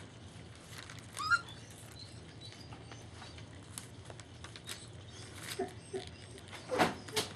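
Young German Shepherd puppies eating soft food from a metal pan: small clicks, taps and smacking sounds as they lap, with newspaper rustling under their paws. A short, high, rising puppy squeak comes about a second in, and a couple of louder knocks near the end.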